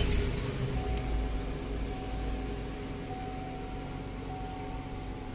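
2004 GMC Yukon's V8 engine just after starting, its fast idle dropping over the first couple of seconds and then idling steadily.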